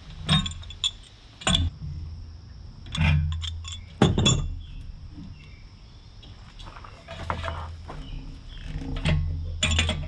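Metal clinks and taps of a wrench against brass air fittings as they are threaded and tightened into the port of an air tank, with dull handling knocks on the tank. The clinks come in small clusters: a few in the first two seconds, several about three to four seconds in, and more near the end.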